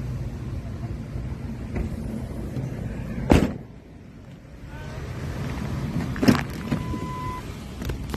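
A vehicle door thuds shut about three seconds in over a low rumble, which turns quieter after it. A second thud follows a few seconds later, then a short steady beep lasting under a second.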